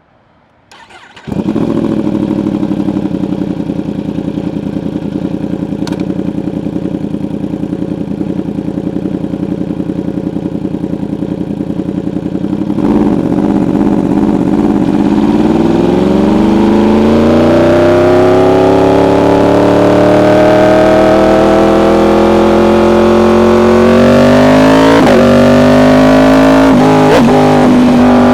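Yamaha R1 inline-four with an SC Project exhaust starting up about a second in and idling steadily. From about halfway the engine note gets louder and climbs gradually in pitch, with two brief dips near the end.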